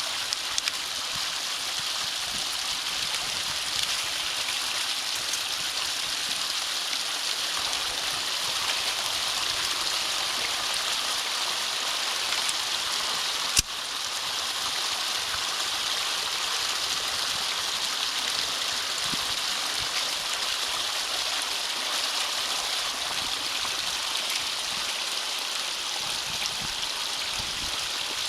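Steady rush of water flowing through a drainage ditch culvert, with one sharp click about halfway through.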